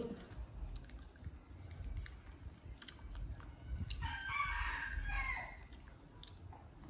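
An animal call lasting about a second and a half, starting about four seconds in, over faint scattered clicks.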